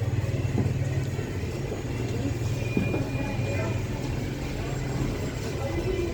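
A vehicle engine running steadily with a low drone that eases off after about four and a half seconds.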